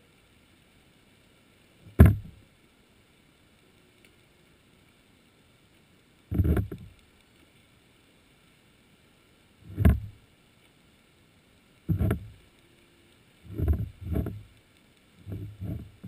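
Muffled thuds and knocks heard through an underwater camera housing, each a sudden hit with a brief low rumble after it: single ones about two, six and ten seconds in, then coming closer together, in quick pairs near the end. Faint steady high tones sit underneath.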